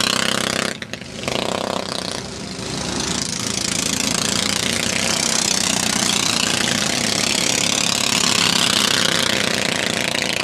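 A pack of dirt-track racing karts with small single-cylinder four-stroke engines running hard. One kart goes by close at the start, the sound drops briefly about a second in, then the rest of the field passes in a loud blend of engine notes rising and falling as they go by.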